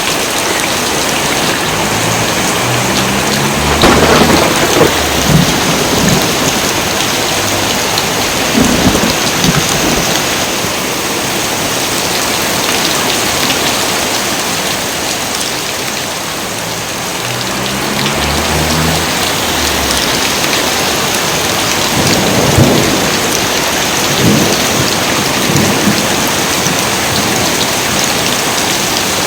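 Heavy, steady rain with thunder: a low rumble of thunder about three seconds in and another about eighteen seconds in, and several sharper, louder cracks scattered through.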